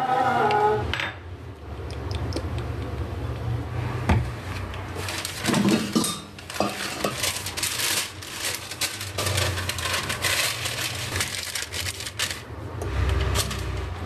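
Kitchen handling sounds: pots and utensils knocking and clinking, then a long stretch of crackling and rustling as parchment paper is pressed into an air fryer basket.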